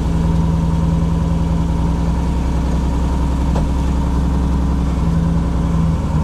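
Lexus SC400 drift car's engine running steadily at idle.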